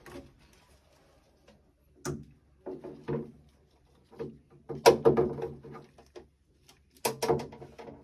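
Clicks, knocks and rattles of a boiler's ignition spark generator and its leads being handled and unplugged, in several short bursts, the loudest about halfway through.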